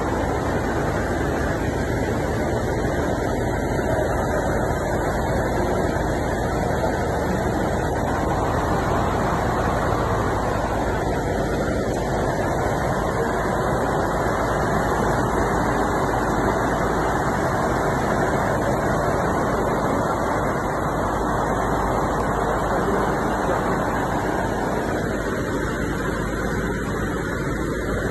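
Muddy flash-flood torrent rushing past: a loud, steady rush of floodwater that holds level throughout.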